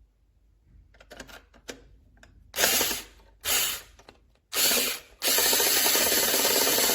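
Kiprim 4V cordless electric screwdriver driving a small screw in through its flexible shaft extension: a few light clicks, then three short bursts of the motor and gears, then running steadily from about five seconds in.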